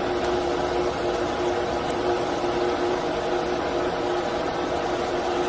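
ATC CNC router's axis drive motors running as the gantry travels slowly back toward its home position during homing, a steady hum with a few constant tones.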